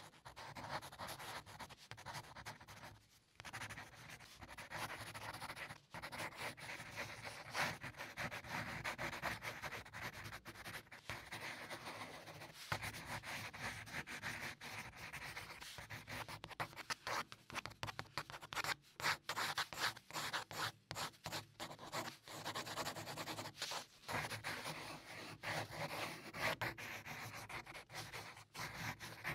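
Graphite pencil drawing on paper: a continuous run of scratchy strokes of varying length, with a couple of brief pauses between strokes.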